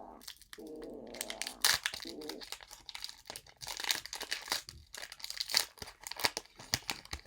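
A foil Pokémon TCG booster pack wrapper crinkling as it is torn open and the cards are pulled out, a dense run of crackles. A faint wavering tone runs under the crinkling for about the first two seconds.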